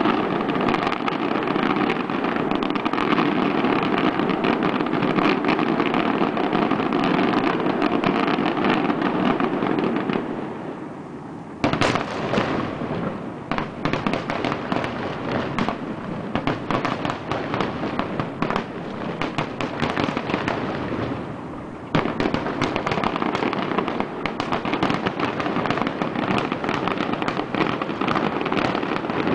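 Fireworks finale: a dense, continuous barrage of bangs and crackles that dies down about ten seconds in. A sharp loud bang follows, then a run of separate booms, another lull, and a sudden return to a dense barrage about twenty-two seconds in.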